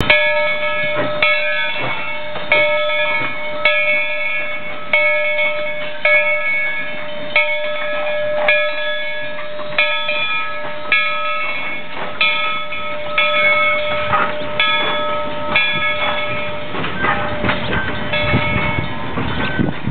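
Steam locomotive's bell ringing steadily, struck about once every second and a quarter while the train moves. Over the last few seconds the bell fades and the low rumble of the moving train grows.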